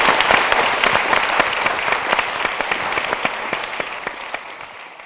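A large audience applauding, many hands clapping at once, fading steadily toward the end.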